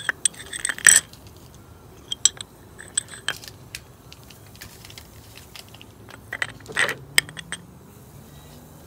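Steel shanks of carbide burrs clinking and tapping against a glass mason jar as they are set into a caustic soda bath. The sharp taps come in three clusters: at the start, about two to three seconds in, and about six to seven and a half seconds in.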